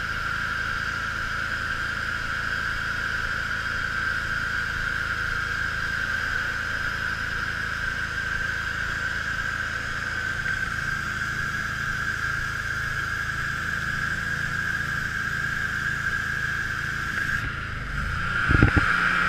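Mi-T-M 3506 pressure washer running steadily, with a constant high whine over a low even pulse, while its pump draws antifreeze through the system to winterize it. A few sharp knocks near the end.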